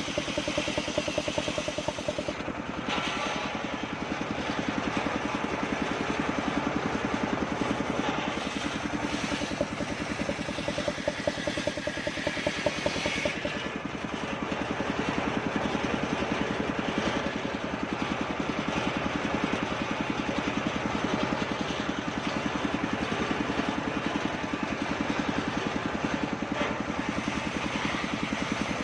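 Engine-driven circular saw blade running through kapok wood, ripping it into boards, over the steady, fast beat of its drive engine. The higher cutting noise changes about three seconds in and again around thirteen seconds.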